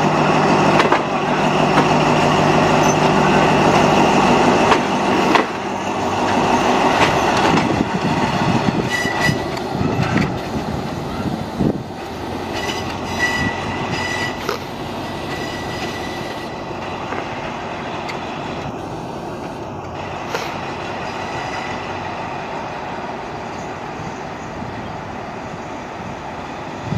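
Alsthom diesel-electric locomotive 4223 with its engine running steadily, then the train rolling on with clicks from the rails and brief high wheel squeals about 9 to 15 seconds in. The sound grows quieter as it goes on.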